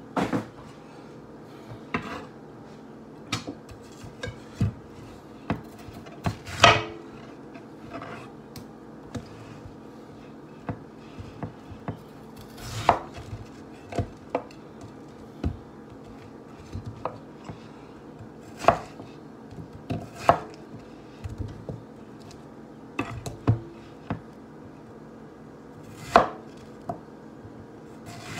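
Kitchen knife chopping a peeled yam into chunks on a wooden cutting board: irregular knocks of the blade against the board every second or two, a few of them much louder.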